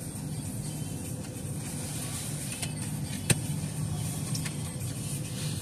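Steady low rumble of an idling car and automatic car wash machinery, heard from inside the car's cabin, with a faint high hiss and one sharp click about three seconds in.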